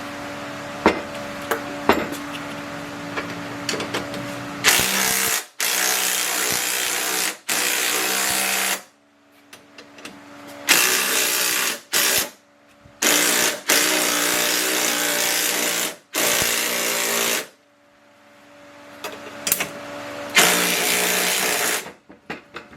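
A handheld power tool, likely a drill or impact-type driver on the strut's fasteners, run in a series of loud bursts of half a second to two seconds, each starting and stopping sharply, after a few seconds of steady low hum with scattered clicks.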